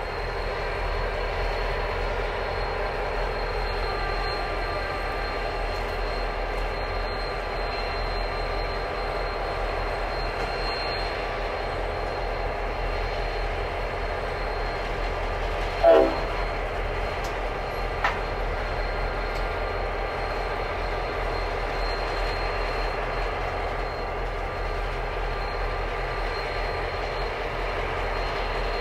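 Diesel locomotives hauling a loaded grain train at low speed: a steady engine drone with a low rumble. About halfway through there is one short, loud sound, and a fainter click about two seconds later.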